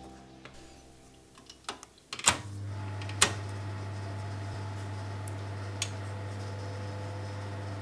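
Oven control knobs click sharply as they are turned. About two seconds in, the electric fan oven switches on with a steady low hum.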